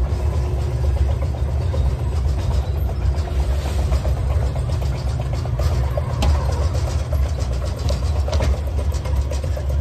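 Shopping cart escalator running: a steady low rumble from the conveyor drive, with rattling and scattered clicks as a shopping cart rides up the track.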